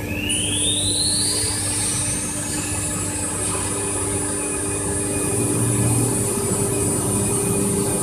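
CNC router spindle spinning up: a high whine rises steeply in pitch over the first three seconds, then holds as a steady high tone once the spindle is at speed, over a steady lower machine hum.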